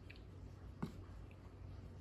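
Quiet room tone with a faint low hum and one soft tap a little under a second in.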